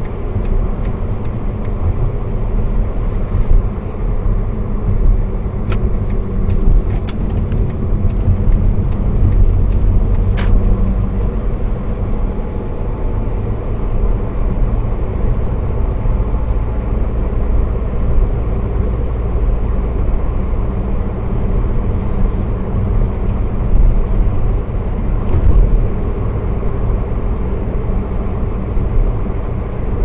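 Volkswagen Jetta driving, heard from inside the cabin: a steady low rumble of engine and road noise, with a few brief clicks between about six and ten seconds in.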